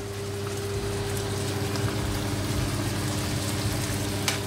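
Jumbo prawns and crab sticks sizzling in a frying pan as they are stirred, over a steady low hum. A sharp click of the utensil on the pan near the end.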